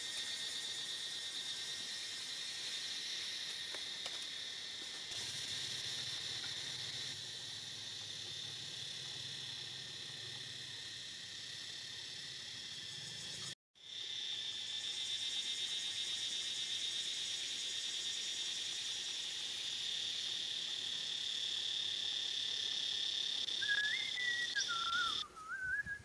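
Steady, high-pitched insect chorus buzzing continuously in dry woodland. A short wavering whistle-like call comes in near the end.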